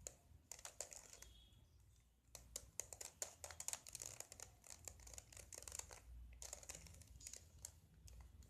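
Plastic Rubik's cube being turned by hand: faint, quick clicking and clacking as its layers rotate, with a short lull about two seconds in and the busiest turning after it.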